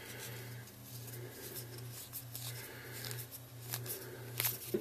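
Small clicks and rubbing of plastic as a PVC cap is pushed onto a PVC pipe by hand, with a few sharper clicks near the end, over a steady low hum.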